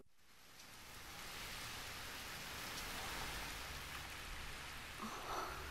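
Heavy rain pouring down as a steady hiss, a radio-drama sound effect that fades in over the first second or two. A low rumble builds up under it toward the end.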